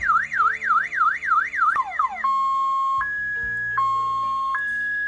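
Cardot GSM/GPS car alarm siren going off, set off by its ultrasonic motion sensor. A fast rising-and-falling wail, about three sweeps a second, breaks into a few quick falling chirps about two seconds in, then switches to a steady two-tone hi-lo alternation.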